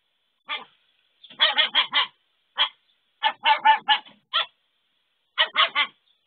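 An animal's short honk-like calls, repeated in quick runs of three or four with single calls between.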